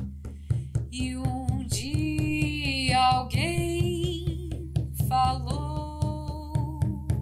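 Frame drums struck with a beater in a steady beat, about three strokes a second, with a woman singing long held notes over them from about a second in.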